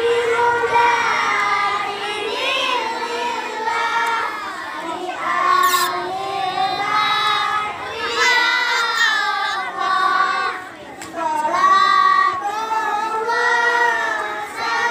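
A group of schoolboys singing together in sustained, melodic phrases, with a brief pause about two-thirds of the way through.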